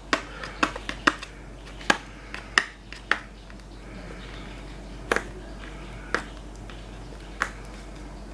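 Hands unboxing a setting spray: about ten sharp clicks and taps at irregular intervals as the box and its packaging are handled and opened, coming closer together in the first three seconds.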